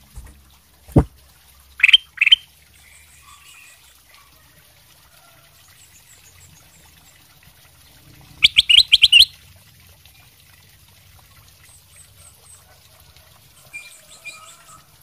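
Ruby-throated bulbul (kutilang emas) singing: two short loud notes about two seconds in, then a quick run of about six loud notes near the middle, and a few softer notes near the end. A single sharp knock about a second in.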